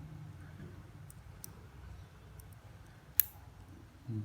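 Small metal clicks from the folding tools of a Victorinox Nail Clip 580 pocket knife being handled, with one sharp snap about three seconds in.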